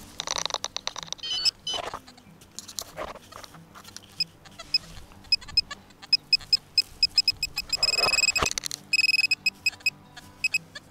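Hand-held metal-detecting pinpointer probe beeping in short high pulses that come faster and faster, ending in a rapid string of beeps as it homes in on a small metal target in the soil. Soil is scraped and crumbled by hand in between.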